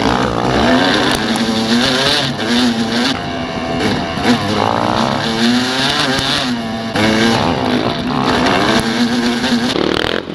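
Yamaha YZ250 two-stroke dirt bike engine being ridden hard, its pitch rising and falling again and again as the throttle is worked through the corners, with other dirt bikes running close by.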